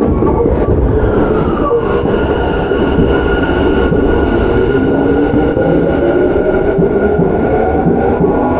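Tokyu 9020 series commuter train running, heard from inside the car: the Mitsubishi VVVF inverter and traction motors whine in several steady tones over the rumble of the wheels on the rails. One tone falls about a second in, and from about halfway through the whine rises steadily in pitch.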